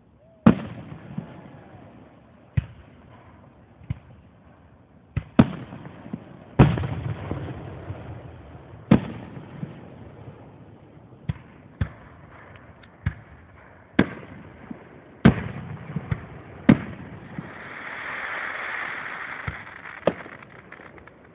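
Aerial fireworks shells bursting: about fifteen sharp booms at uneven intervals, each followed by a rolling echo. A soft hiss swells and fades late on.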